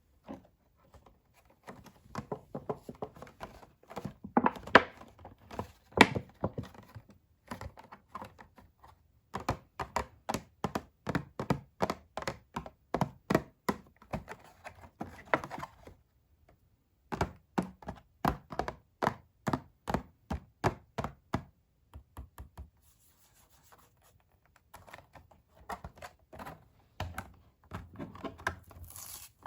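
Toy doll packaging being worked open by hand, making sharp plastic and cardboard clicks and taps. They come in two steady runs of about four a second, with a pause between, and turn to softer handling near the end.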